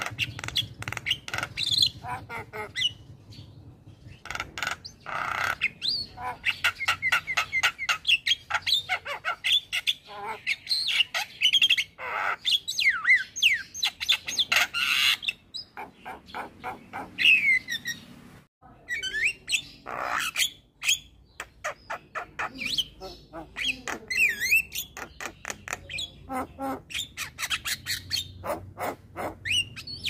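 Male Javan myna singing a long, loud run of rapid chattering, clicking notes mixed with short rising and falling whistles. The song breaks off briefly a little past halfway, then resumes.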